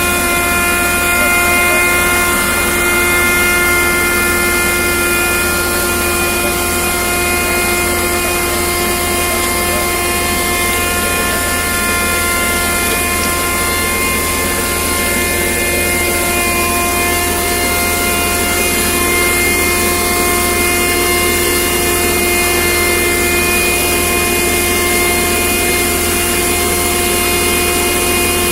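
A machine's motor or engine running steadily at constant speed, a continuous pitched whine with overtones over a rushing noise.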